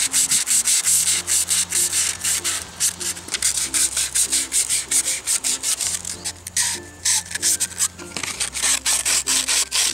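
Fine 220-grit sandpaper rubbed by hand over PVC pipe and fittings: rapid back-and-forth scratchy strokes, a few a second, scuffing the glossy plastic so spray paint will stick.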